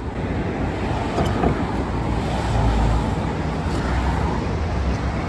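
Low rumble of road traffic, swelling about halfway through.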